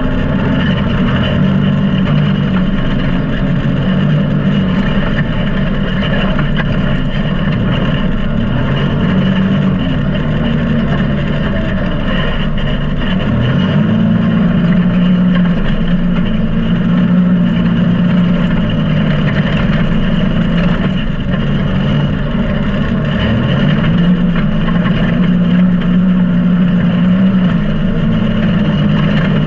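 Can-Am Maverick X3 XRS Max UTV's turbocharged three-cylinder engine running steadily under load while driving on sand. Its note drops and climbs back up twice, about halfway through and again near the end.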